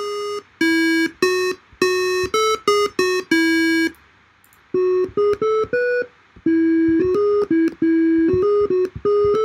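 A simple synthesizer melody of short, beeping notes from a Blender Audio Nodes software oscillator, played live on MIDI touch pads. It begins as a bright, buzzy square-wave tone. After a short pause about four seconds in, it comes back as a softer triangle-wave tone.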